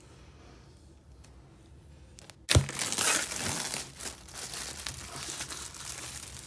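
Clear plastic shrink wrap being torn and peeled off a cardboard product box, crinkling and crackling. It starts suddenly, loud, about two and a half seconds in, after a faint start.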